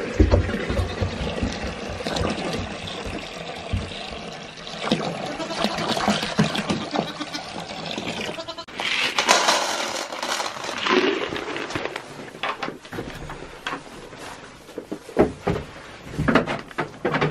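Water poured from a jug into a plastic bucket, splashing about halfway through. Goats bleat and move in straw early on, and there are scattered knocks and clatter from handling containers near the end.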